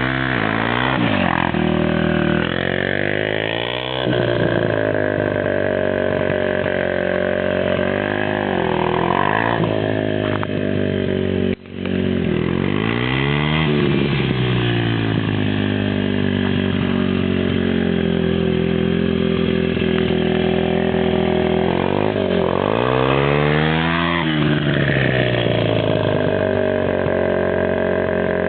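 Daelim VS125's small V-twin engine running on a custom chopper, its revs repeatedly falling and climbing again. The sound cuts out for a split second about a third of the way in.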